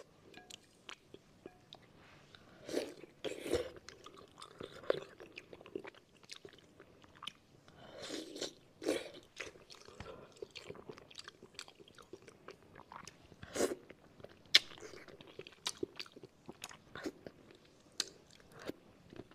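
Close-miked mouth eating braised fish: biting, chewing and sucking the flesh off the bony, finned pieces. Many short wet clicks from the mouth, with a few louder bites.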